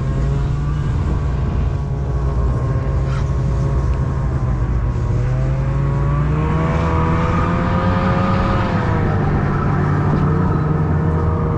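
A motor vehicle engine running steadily, its pitch climbing and wavering near the middle as it speeds up, then settling.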